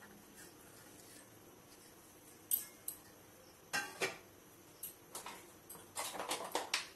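Stainless-steel dishes clinking and knocking as a steel plate and bowl are handled and set down: a few separate knocks after a quiet start, then a short cluster of them near the end.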